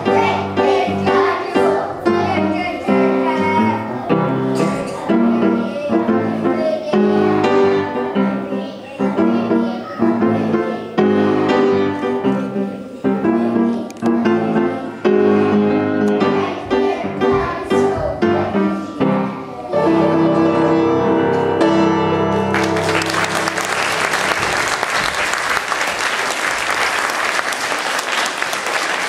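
Young children singing a song with piano accompaniment, which ends on a held note; then an audience applauds for the last several seconds.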